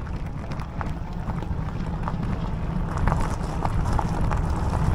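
Fat e-bike tyres rolling over a loose gravel track, with scattered sharp clicks of stones under the wheels and a low wind rumble on the microphone. It grows louder about three seconds in.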